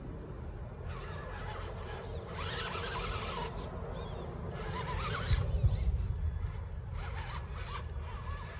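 Electric drive motors and geared axles of two RC rock crawlers whining in bursts as they climb rocks, the pitch rising and falling with the throttle. A brief low rumble a little past the middle is the loudest moment.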